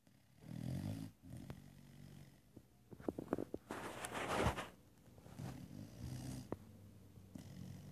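Dog snoring: a few separate rattly breaths, with a louder, noisier burst near the middle.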